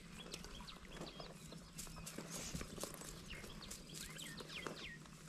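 A cast net being handled and shaken out, giving scattered light clicks and rustles, with short high bird chirps over it.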